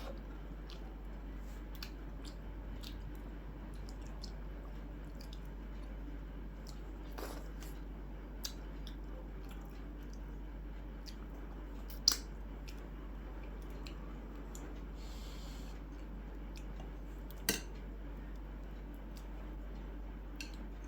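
Quiet eating sounds: chewing and the soft squish of food, with scattered small clicks and two sharper clinks, about twelve and seventeen seconds in, over a steady low hum.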